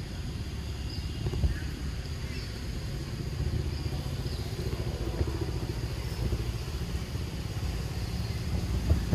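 A steady low rumble, like a motor running at a distance, with faint short high chirps now and then.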